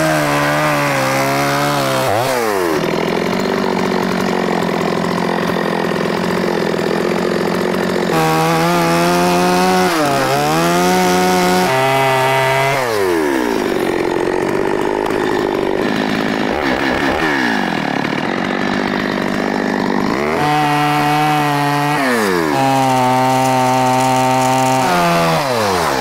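Stihl Wood Boss two-stroke chainsaw cutting into a wooden tree stump, run at high revs with its pitch falling back and climbing again several times as the throttle is eased and reopened.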